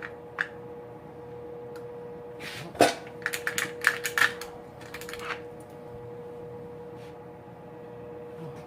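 A quick run of sharp metallic clicks and clacks, bunched between about three and five and a half seconds in, as a distributor is lifted and worked back down into the engine to seat its gear and oil pump drive. A steady faint hum sits underneath.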